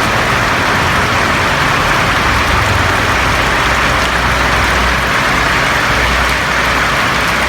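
Steady rain falling on a roof, a dense even hiss, with a low rumble underneath.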